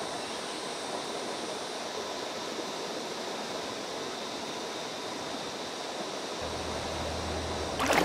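Shallow creek water running steadily over rocks. A low rumble joins in about six seconds in.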